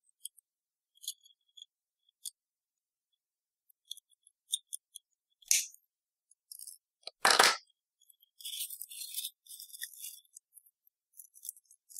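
Hand work with 26-gauge Kanthal resistance wire and small metal side cutters: sparse small metallic clicks, a louder clack about seven seconds in, then light metallic jingling and rattling as the wire spool is handled in the last few seconds.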